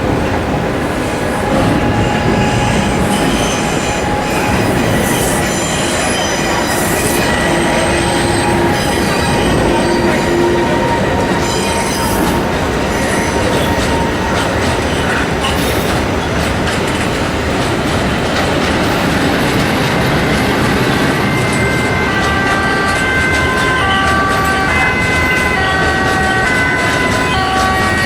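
Recorded sound of a train running through a station, with wheels squealing and clattering over the rail joints. About twenty seconds in, a run of high tones starts, stepping up and down in pitch.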